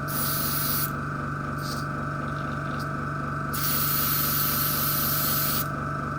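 Airbrush spraying in two hisses, a short one at the start and a longer one of about two seconds from halfway in, over the steady pulsing hum of a small hobby airbrush compressor.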